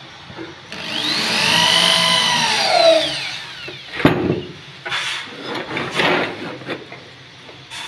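Handheld cordless drill running for about two and a half seconds, its motor whine rising and then falling in pitch as the trigger is squeezed and let go. A sharp knock follows about four seconds in, then a few shorter clatters.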